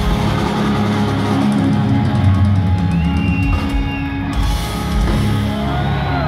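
Live heavy metal band playing loud through a concert PA, with distorted electric guitars and drums, heard from within the crowd.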